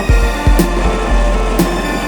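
Background music with a steady beat: a sharp hit about once a second over low thumps and a short repeating pattern of notes.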